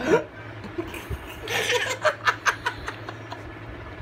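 Laughter in short, breathy pulses, with a louder burst at the start.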